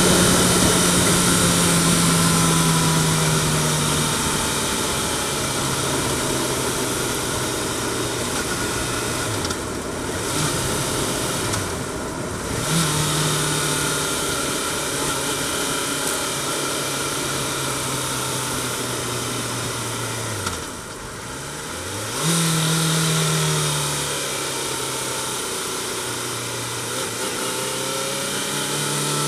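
Yamaha FZ6R's 600 cc inline-four engine running at road speed, heard from a mic behind the fairing; its revs drop and climb again several times, with a steady rush of wind noise.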